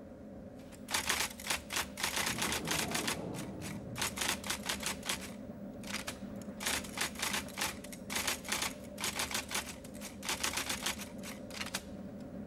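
Rapid typing on a keyboard: quick key clicks in irregular bursts with short pauses, over a steady low hum.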